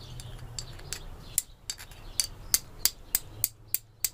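Flint struck repeatedly against a hand-forged, tempered steel striker to throw sparks: a run of sharp clicks about three a second, louder from about a second and a half in.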